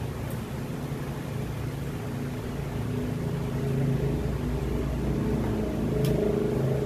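A steady, low engine-like hum that grows louder over the first few seconds, with a single sharp click about six seconds in.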